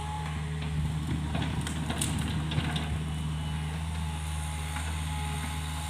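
Hitachi mini excavator's diesel engine running steadily while the bucket scrapes and digs into the soil. Scattered crackles and knocks from earth and roots come mostly in the first half.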